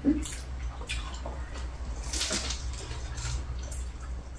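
Quiet meal sounds: faint clicks and rustles of chopsticks and hands handling lettuce-wrapped bánh xèo, and chewing, over a low steady hum.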